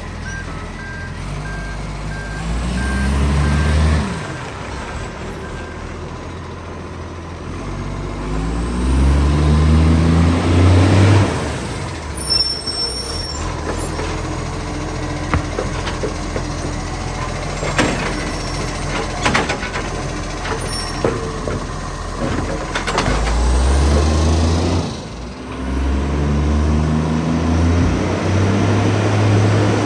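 Diesel garbage truck revving several times, with a loud exhaust from a huge exhaust leak. A reversing alarm beeps steadily for the first few seconds, and sharp clanks and hisses come in the middle.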